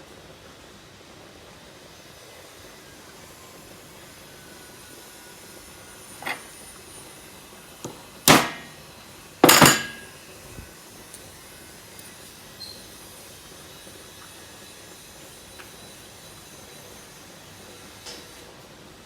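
A few sharp knocks and clicks from hard objects being handled and set down, two loud ones about a second apart just before halfway, over a steady faint hiss.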